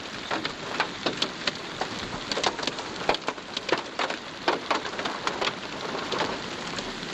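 Rain falling, with many irregular sharp taps of drops striking close by over a steady hiss.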